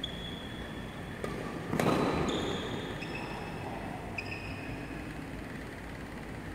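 Badminton rally: a racket hits the shuttlecock with a light click about a second in, then a louder smack that echoes through the hall. Sports shoes squeak briefly on the court floor several times after it.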